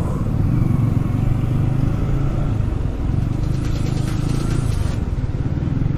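Yamaha R15 V3 motorcycle being ridden, its single-cylinder engine running steadily under a constant rush of road noise.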